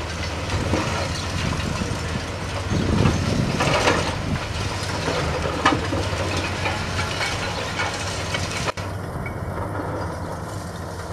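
Excavator with a hydraulic demolition shear crushing a concrete building: cracking and crunching of concrete, with debris clattering down, over the steady low drone of the excavator's diesel engine. The crunching is heaviest about three to four seconds in.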